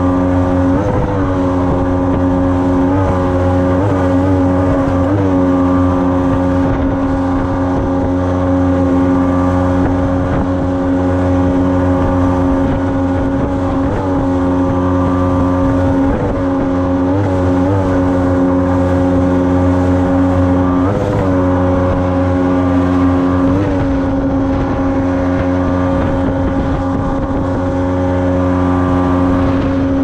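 Water-jet outboard motor running steadily at high revs under load, driving an inflatable boat up a river rapid. Its pitch briefly wavers up and down several times.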